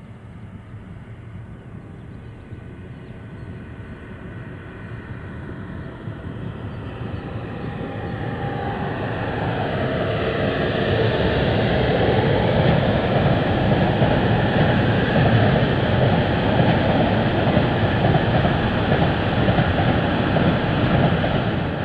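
Class 143 electric locomotive and a long container freight train rolling across a concrete viaduct. The rumble of wheels on rails grows louder over the first half as the train draws near, then holds steady as the container wagons pass.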